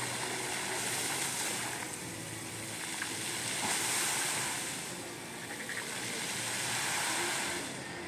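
Water jets of a lit fountain spraying and splashing down onto a lake: a steady rushing hiss that swells and fades as the jets rise and drop, loudest about halfway through.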